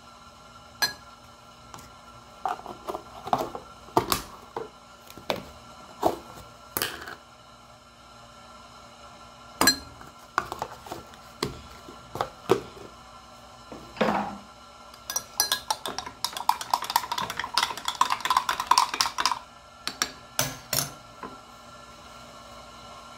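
A metal spoon tapping against a glass and plastic tubs as spice powders are spooned into a glass of liquid, then stirring quickly in the glass with a few seconds of rapid clinking. A couple of last knocks follow near the end.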